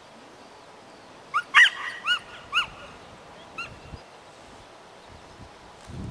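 A dog yipping: about five short, high yelps that rise and fall in pitch in quick succession, starting a little over a second in, then two fainter ones a second later.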